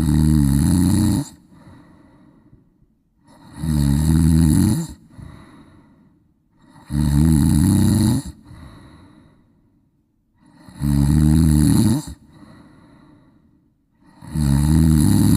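Loud, regular snoring. There are five rasping snores about three and a half seconds apart, each lasting just over a second and followed by a softer breath out.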